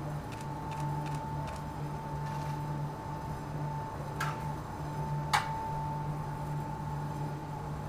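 Steady hum with a high whine from the forge and its fire, and two sharp clicks about four and five seconds in, the second louder.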